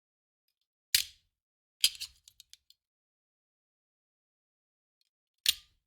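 Handgun magazine thrown onto a hard surface, landing three separate times with a sharp metallic clack. The first lands about a second in. The second, near two seconds in, bounces and rattles several times. The third lands near the end.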